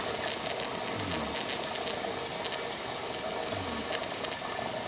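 Gas burner under a toy steam engine's boiler hissing steadily as it raises steam, with faint irregular ticking and twice a short falling tone.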